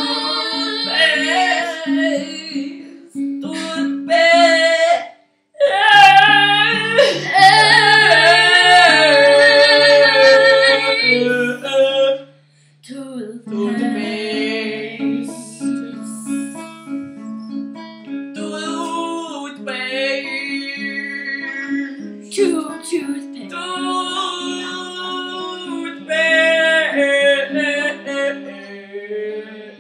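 Acoustic guitar plucked in a steady rhythm under a child singing a wavering melody. The music drops out briefly twice, about five seconds in and again about twelve seconds in.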